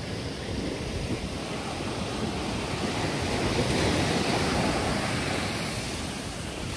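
Ocean surf: waves breaking and washing up the sand in a steady rush, swelling to loudest about four seconds in as a wave breaks.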